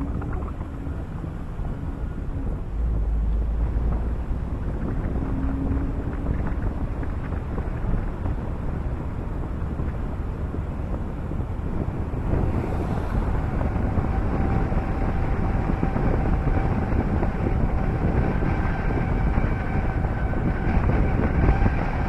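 Wind buffeting a microphone mounted outside a moving car, over the car's low road and engine rumble. About halfway through a faint steady whine joins the noise as the car drives on along the open road.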